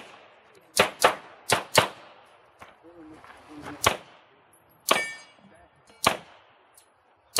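Handgun shots: two quick pairs within the first two seconds, then three single shots about a second apart. The shot near five seconds is followed by a brief metallic ring.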